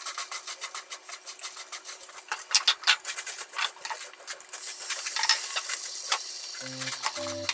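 Long cooking chopsticks clicking and tapping against a small glass cup as beaten egg is stirred, over a light sizzle from a rectangular tamagoyaki pan on a gas burner. Background music comes back in near the end.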